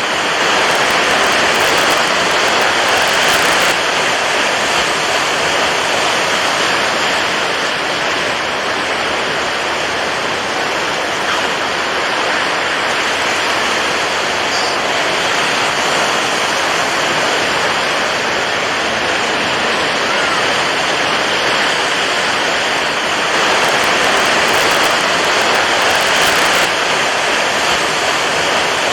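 Water waves: a steady rushing wash of water, swelling a little louder twice.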